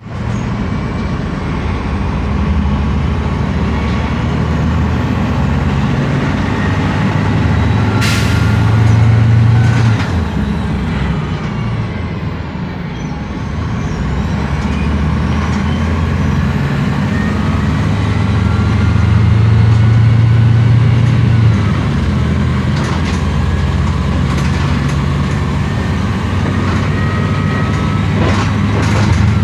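Road traffic with heavy diesel vehicles running: a low engine drone that swells twice, around ten and twenty seconds in, and a short sharp hiss about eight seconds in.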